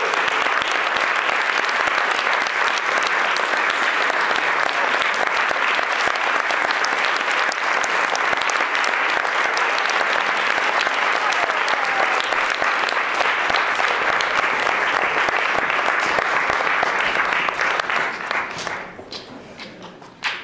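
Audience applauding during the curtain call: steady, dense clapping that thins out into a few separate claps and dies away in the last couple of seconds.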